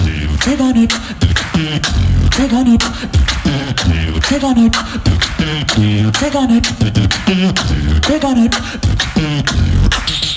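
Solo beatboxer performing a beat with his mouth: heavy bass kicks and sharp snare and hi-hat clicks, with a pitched vocal swoop repeating over them at an even pace.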